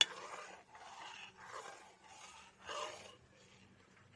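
Metal ladle stirring and scraping thickening coconut milk in a wide metal pan, in a run of swishing strokes about one a second, with a sharp click at the start. The coconut milk is being boiled down to render virgin coconut oil.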